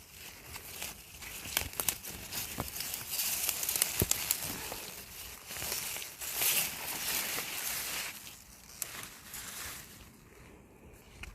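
Irregular rustling and crinkling, with scattered sharp snaps, busiest in the middle and dying down near the end.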